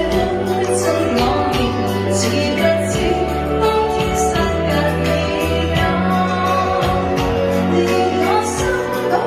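A woman singing a Chinese pop song over accompaniment with sustained bass notes and a steady beat.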